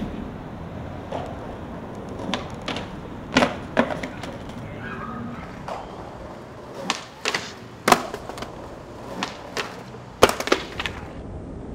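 Skateboard clacks and knocks on stone: a string of sharp hits from the board's tail, wheels and deck striking the ledge and steps, including the board clattering away on the stone stairs in a bail. The loudest knocks come about two-thirds of the way through and near the end.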